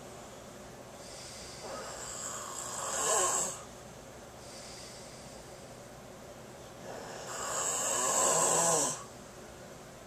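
Snoring: two long snores about six seconds apart. Each swells in loudness and then stops abruptly, and the second is the longer.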